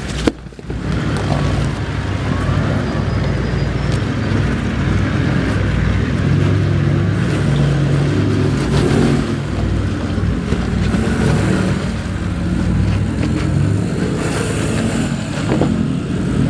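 Toyota 79 series LandCruiser engine running at low revs, rising and falling as the 4WD crawls up a steep rock slope. A short sharp click sounds just after the start.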